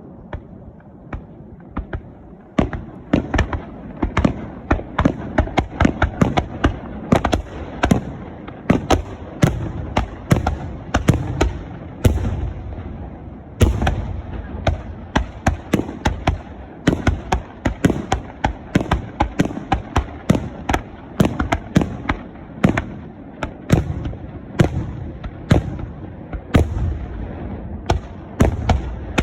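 Fireworks finale: aerial shells bursting in a rapid barrage, a few scattered bangs at first, then about two seconds in a dense volley of several bangs a second that keeps up without a break.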